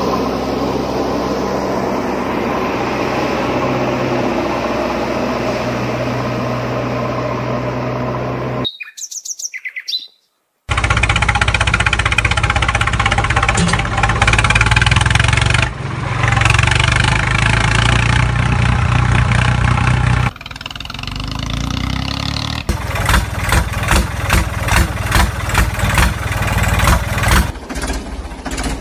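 Dubbed-in vehicle engine sound effects in several spliced clips that change abruptly, with a brief near-silent dropout about nine seconds in. In the last part the engine sound pulses in a chugging rhythm of about two beats a second.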